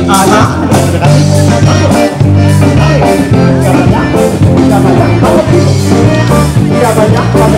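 Upbeat band music through PA speakers: guitar and bass over a steady beat, with singing near the start and again near the end.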